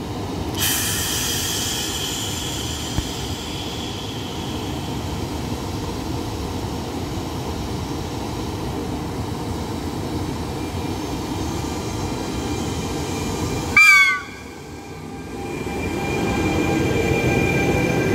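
Trenord E.464 electric locomotive standing at the platform with a steady running noise; about 14 seconds in it gives one short horn toot. Then a rising electric whine and growing rumble begin as the locomotive starts to pull away.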